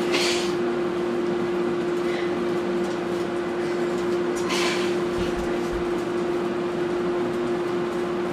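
Microwave oven running with a steady electrical hum. Two brief hissy noises come near the start and about four and a half seconds in.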